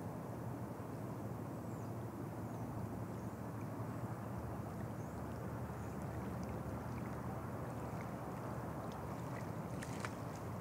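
Steady low rumbling background noise with faint, short high chirps every second or two, and a couple of sharp clicks near the end.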